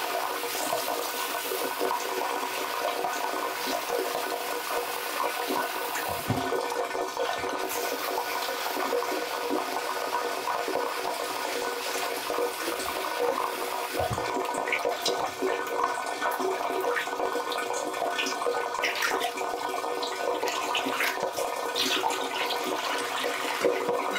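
Kitchen tap running steadily into a stainless steel sink, splashing over hands as they rinse green onion stalks. Scattered small splashes and knocks come from the handling.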